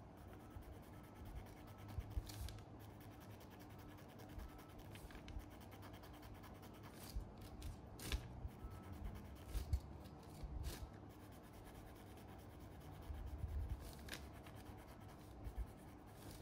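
Faint rubbing and dabbing of a cotton bud carrying chalk pastel on a canvas board, with a few soft clicks and low bumps scattered through.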